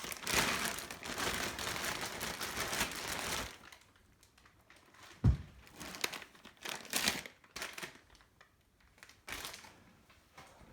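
Packaging wrap being crumpled and handled, dense for the first few seconds, then in short rustles, with one dull thump about five seconds in.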